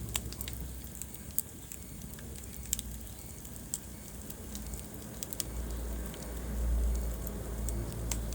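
Wood fire crackling in a fireplace: irregular sharp pops and clicks over a low rumble of burning flames, and the rumble swells about two-thirds of the way in.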